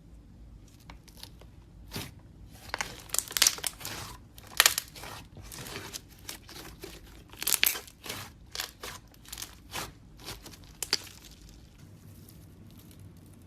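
Slime being squeezed and pressed by hand, giving irregular crackling and crunching, thickest a few seconds in and again around the middle, then dying away near the end.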